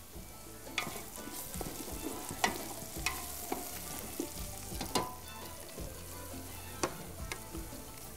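Sliced onions and garlic frying in oil in a shallow aluminium pan, sizzling steadily. A wooden spoon stirs through them, knocking sharply against the pan about six times.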